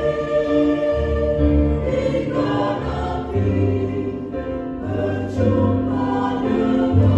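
A choir singing a Christian hymn in long held chords, over sustained low bass notes from organ and piano accompaniment.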